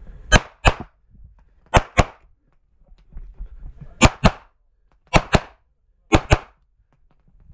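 SPS Vista Star open-class pistol firing 9mm major loads in quick pairs: ten shots in five double-taps, the two shots of each pair a quarter to a third of a second apart, with one to two seconds between pairs.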